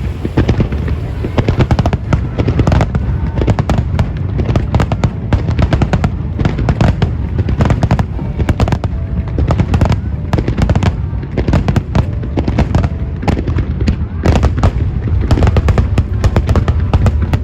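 Aerial fireworks bursting over the sea in a dense, continuous barrage: many booms and crackling reports a second, overlapping, with no let-up.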